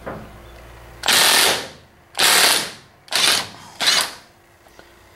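Milwaukee M18 cordless impact driver hammering in reverse in four short bursts, breaking loose and unscrewing a drill chuck from its spindle.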